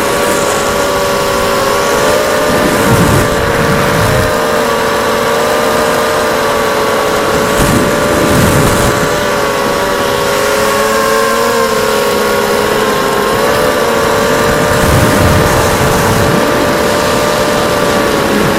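ZMR250 racing quadcopter's brushless motors and propellers running steadily in flight, several close tones wavering slightly together, with dull buffets of wind noise a few times.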